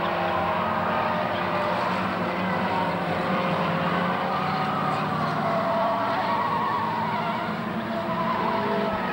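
Pack of saloon race cars racing past, several engines at different pitches overlapping and wavering as they run through the bend and down the straight.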